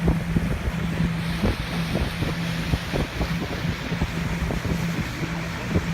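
Wind buffeting the microphone, with irregular low thumps and a steady low hum that cuts out and comes back several times.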